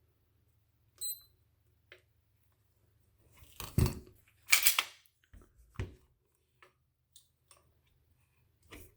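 Polymer 80 pistol being handled and worked: a short ringing metallic ping, then a run of sharp clicks and clacks, the loudest two near the middle.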